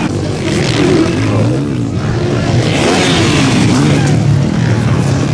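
Several 450cc four-stroke motocross bikes racing, their engines revving up and dropping back over and over as the riders work the throttle and shift gears, with the sounds overlapping.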